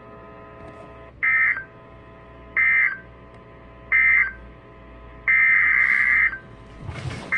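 Emergency Alert System SAME data tones: three short, identical warbling digital bursts about a second and a half apart, the end-of-message code that closes the tornado warning. About five seconds in comes a longer burst of about a second, the start of the header of the next alert.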